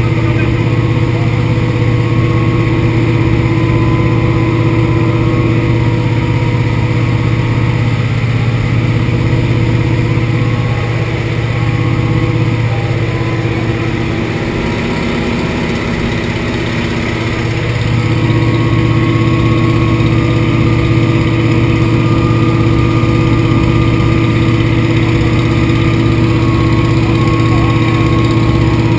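Antonov An-2's nine-cylinder radial engine droning steadily in cruise flight, heard from inside the cabin as a constant low hum with a higher steady tone over airflow noise. The drone dips and wavers for a few seconds in the middle, then comes back up.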